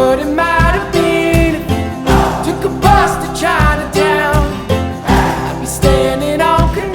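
Slideshow soundtrack music: a song with guitar, a steady beat and a sung melody.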